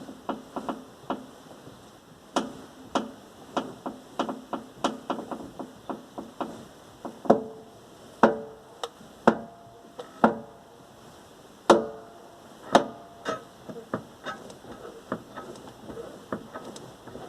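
Irregular sharp metallic knocks and clanks, a few a second, the loudest about halfway through ringing briefly.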